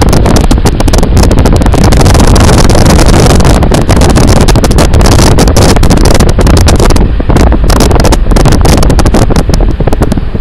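Car driving through snow, its noise loud enough to overload the microphone into a distorted, crackling rumble.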